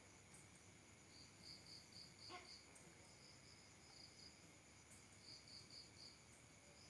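Crickets chirping faintly in short trains of high pulses, about four a second, over a steady high-pitched insect drone. A brief faint sound about two seconds in.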